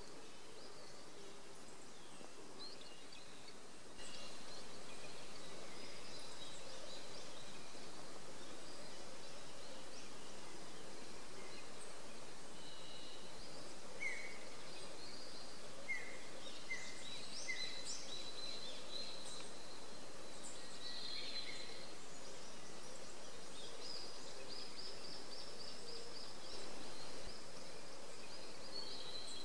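Wild songbirds calling over a steady background hiss that steps up in level about four seconds in: scattered chirps, a few short clear notes in the middle, and a rapid trill near the end.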